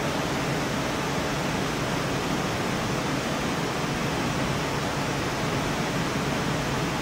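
A steady, even rushing noise with a low hum, unchanged throughout.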